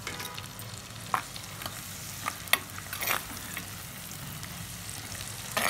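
Chopped onions sizzling in hot oil in a clay pot, with a steel ladle scraping and knocking against the pot several times as they are stirred.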